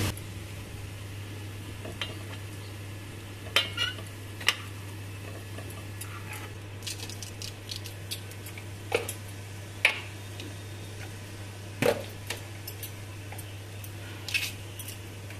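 Metal spatula knocking and scraping against a kadai (Indian wok) of hot oil with whole spices: a scattering of sharp clinks, about eight in all, over a steady low hum.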